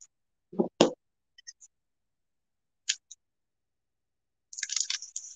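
Plastic shrink wrap being handled and peeled off a tile coaster: two short knocks a little under a second in, a click near three seconds, then dense crinkling of the plastic from about four and a half seconds.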